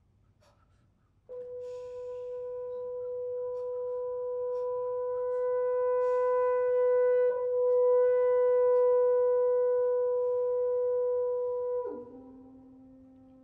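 French horn holding one long note that starts suddenly about a second in and swells louder, with a brief break about halfway through. Near the end it drops to a lower, quieter note that fades.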